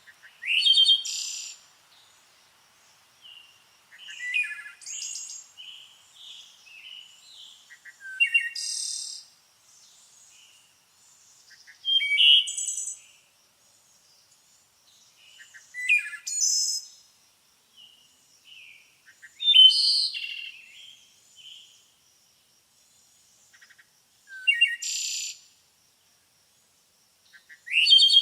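Songbird singing: short phrases of quick, high, sliding whistled notes, repeated about every four seconds with quiet pauses between them.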